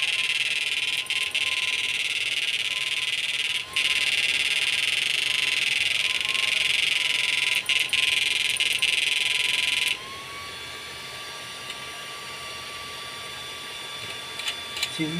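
Steady electrical hiss with a thin constant whine underneath from a MOSFET power circuit under test. The hiss cuts off suddenly about ten seconds in, after which the whine carries on alone, slightly higher.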